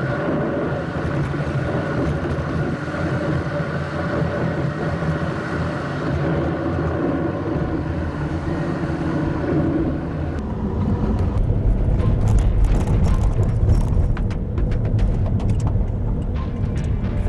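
A car driving, with steady road and tyre noise. About ten seconds in, the low rumble grows heavier and scattered ticks come through.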